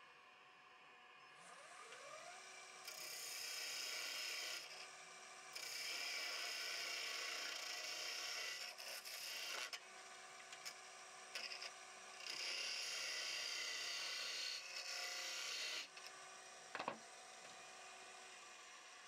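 Wood lathe motor spinning up with a rising whine, then three stretches of steady rasping hiss as something is held against the spinning golden cypress blank, most likely sandpaper; a sharp click near the end.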